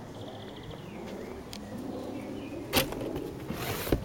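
Handling noise of a cardboard box with newspaper packing: a sharp click, then a short rustle of paper and a dull knock as the box is opened.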